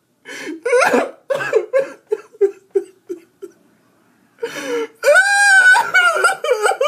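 A man's high, put-on old woman's voice making fake crying sounds without words: a run of short sobbing cries that fade out, a brief pause, then a long high wail.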